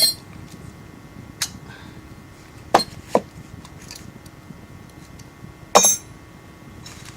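Small metal clicks and clinks of a Medeco lock cylinder and knob lock housing being handled and fitted together: a handful of separate clicks, the loudest at the very start and about six seconds in.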